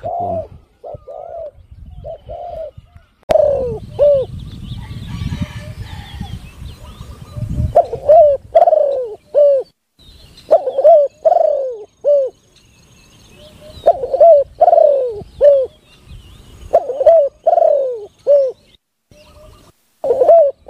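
Spotted dove cooing: loud, repeated phrases of about three rising-and-falling coos every few seconds. A sharp click about three seconds in and some rustling noise over the next few seconds sit under the first calls.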